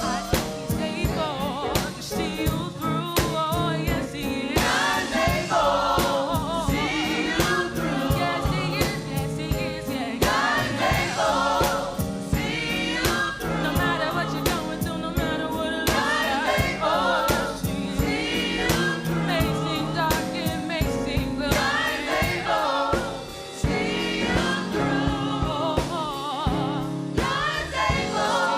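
A gospel choir singing with a band, drums keeping a steady beat under the voices.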